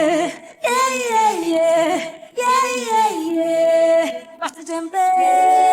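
Unaccompanied high-pitched singing without recognisable words: three phrases that slide down in pitch with short breaks between them, then several voices holding a harmonised chord about five seconds in.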